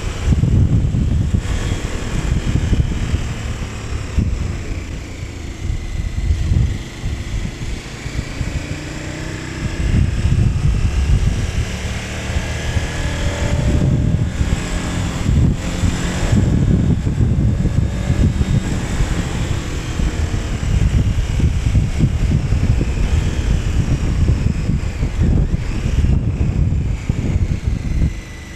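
KTM 1290 Super Adventure S's V-twin engine under way, its revs climbing and falling again and again with throttle and gear changes, over a heavy low rumble. It eases off for a few seconds about a quarter of the way in, then pulls hard again.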